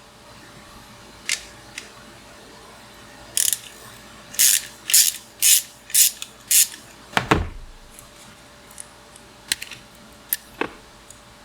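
Hand tools working metal bicycle parts: sharp clicks, then a run of six short rasping bursts about half a second apart, like a ratchet being worked, and one heavy low thud a little past the middle.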